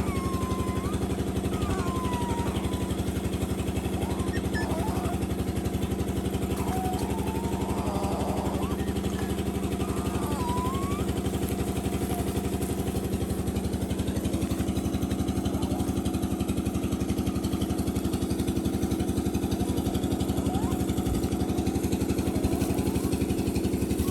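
A small engine running steadily, with puppies whining in short rising and falling cries over the first half.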